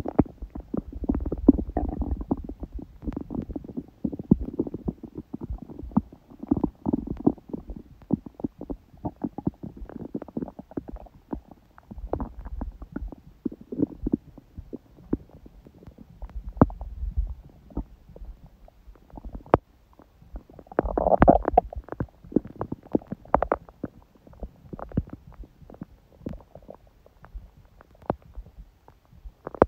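A human stomach gurgling and rumbling, picked up close: soft low rumbles and many small pops, with one louder gurgle about two-thirds of the way through.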